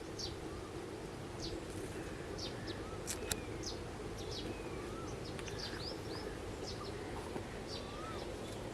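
Birds chirping: many short, high chirps and a few lower whistled notes, over a steady low background hum.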